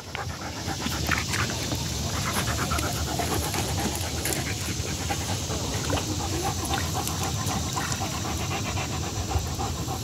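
A Rottweiler panting steadily.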